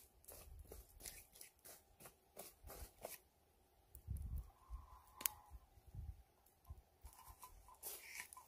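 A boot treading down a bed of hot embers and ash, with scattered crunches and crackles and a few dull thuds.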